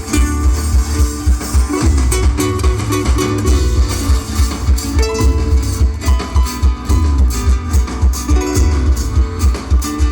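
Live instrumental music: plucked strings playing a lively melody over a steady pulsing bass, in the style of a Paraguayan polca.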